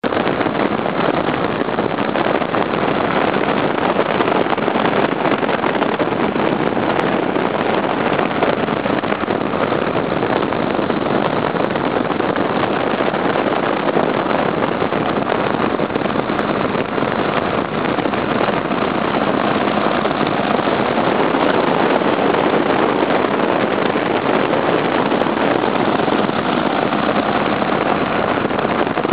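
Steady drone of the small petrol engine of a homemade powered paraglider, driving a front-mounted propeller at flight power, running evenly without change.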